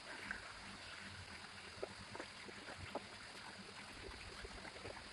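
Faint, scattered light clicks and taps of toy parts being handled while a fitting is turned by hand to tighten it, over a steady low hiss.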